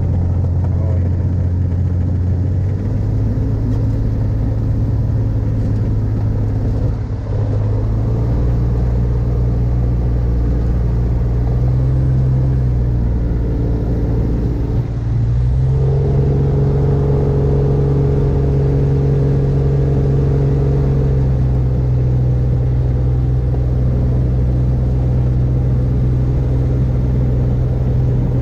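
Rotax 582 two-stroke engine of an X-Air microlight running as the aircraft taxis on grass. It is heard from the open cockpit behind the propeller. The engine speed steps up a few times, dips briefly about halfway through, then picks up and holds steady at a higher pitch.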